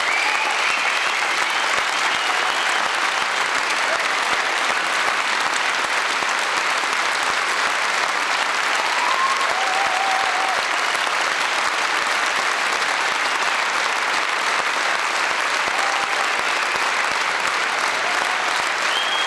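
A studio audience applauding steadily and at length, with a few faint cheers or whistles mixed in.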